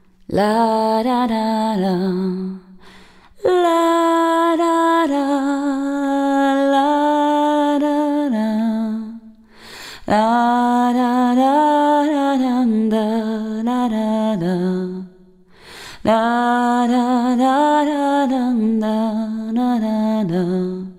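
Music: a single voice singing a slow, wordless, lullaby-like melody on 'la da da' syllables, in four long phrases with short breaths between them.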